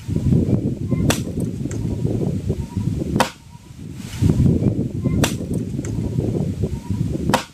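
An axe chopping firewood: four sharp strikes on wood, about two seconds apart. A loud, low, rumbling noise runs under the strikes and drops out briefly after the second one.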